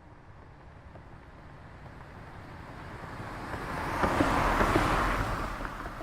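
A single car approaching and passing by, its engine and tyre noise swelling steadily, loudest about four to five seconds in, then fading as it moves away.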